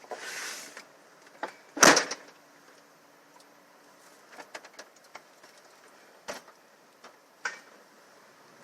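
A car door shut once, about two seconds in, after a brief rustle. A few light clicks and knocks follow.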